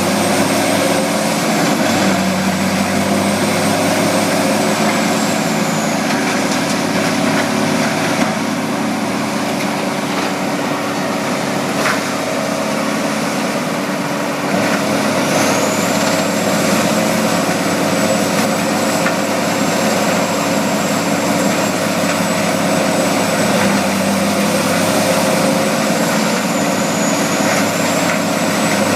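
Vermeer HG8000 horizontal grinder's big diesel engine running steadily. A high-pitched whine above it dips twice and fades out for several seconds in the middle.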